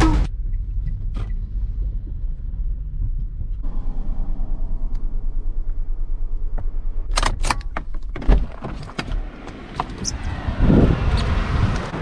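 Car engine running with a low rumble, pulsing evenly for a few seconds, then clicks and a single thump about two-thirds of the way through.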